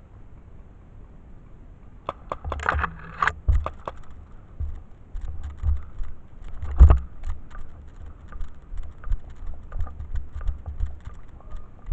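Irregular clicks, rattles and low thumps of a person moving on foot with a body-worn camera: footsteps and gear knocking against the camera, starting about two seconds in. The loudest is a single knock near the middle.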